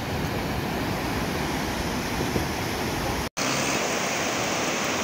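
Ocean surf breaking and washing up a sandy beach as a steady rushing noise, with a low rumble under it for the first three seconds. The sound drops out for an instant about three seconds in, then the surf continues, hissier.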